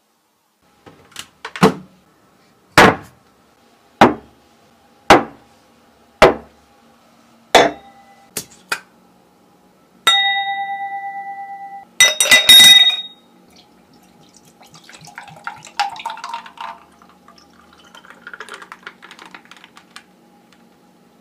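A stemmed glass is flicked with a finger and rings clearly for about two seconds, then clinks loudly as something is dropped into it, and a drink is poured in with a soft fizzing splash. Before that, a row of about seven sharp knocks, roughly one a second, fading at the end.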